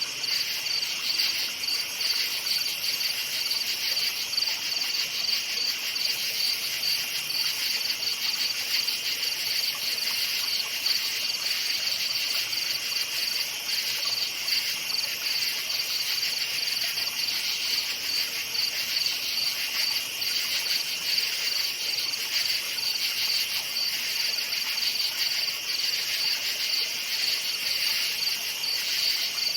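Night chorus of crickets chirping in dense, rapid, evenly repeating pulses, high-pitched and unbroken throughout.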